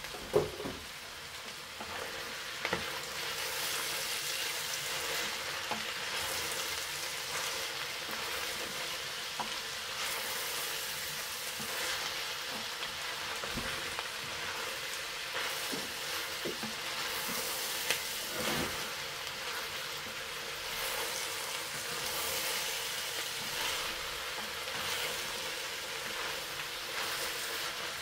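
Chopped vegetables sizzling as they sauté in oil in a stainless steel pot, stirred with a wooden spoon that knocks against the pot now and then.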